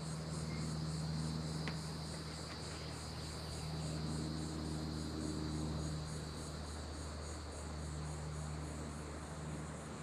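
A chorus of insects calling in the marsh, a high buzz pulsing about three times a second over a steady high trill, with a low steady hum underneath.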